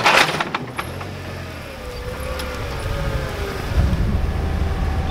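Propane Toyota forklift running while it sets a loaded pallet down into a pickup bed: a sharp clank at the start, a thin wavering whine in the middle, then the engine rumble growing louder near the end.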